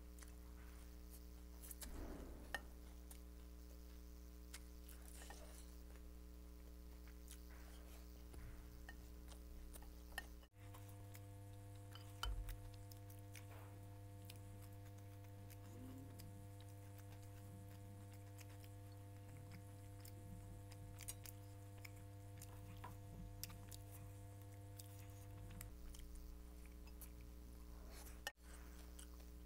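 Faint chewing and mouth sounds of someone eating by hand, with small clicks of food and fingers, over a steady electrical hum.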